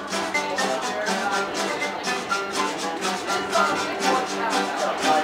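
Mariachi band playing live: acoustic guitars strummed in a steady rhythm under a violin melody.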